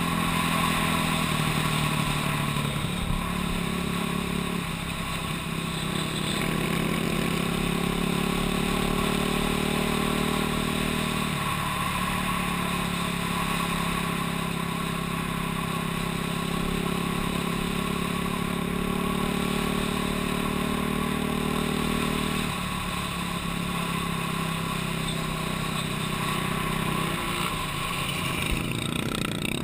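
Off-road dirt bike or four-wheeler engine running at riding speed, its pitch stepping up and down a handful of times with throttle changes, over a steady rush of tyre and gravel noise.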